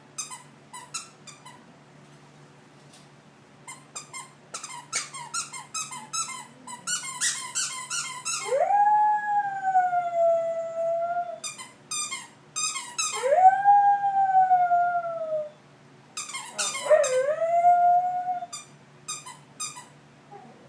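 A dog squeezes a squeaky toy in quick runs of squeaks, then howls three times, each howl sweeping up in pitch and then held, with more squeaking between and after the howls.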